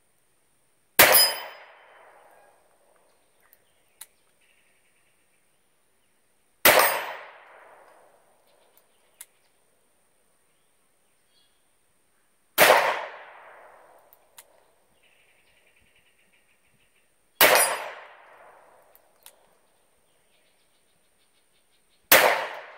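Five shots from a Ruger SP101 .357 Magnum revolver loaded with .38 Special, fired slowly about five to six seconds apart, each fading out over about a second. Faint clicks come between the shots.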